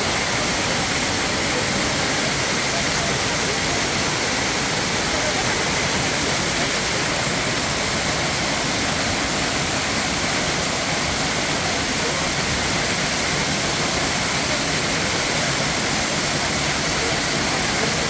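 Waterfall plunging onto rocks and into a shallow pool: a steady, even rush of falling water.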